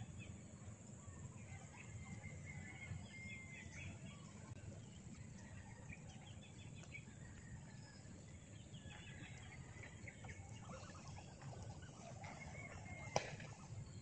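Quiet outdoor ambience: faint, scattered bird chirps over a steady low background noise, with one sharp knock near the end.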